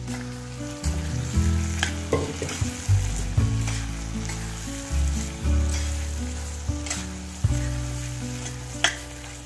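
Thick meat-and-potato curry sizzling in an iron kadai as a metal spatula stirs it, with a few sharp scrapes and clicks of the spatula against the pan. Low background music notes, changing about every second, run underneath.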